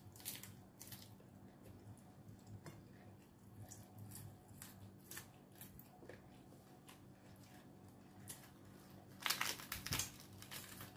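Faint chewing and crunching of a crisp lettuce leaf wrapped around raw chili peppers, as small scattered clicks and crackles. Near the end, a louder run of crisp crackles as fresh lettuce leaves are handled and torn.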